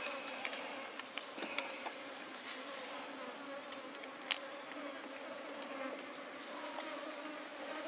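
Steady buzz of insects, with short high chirps now and then and a few sharp clicks, the loudest about four seconds in.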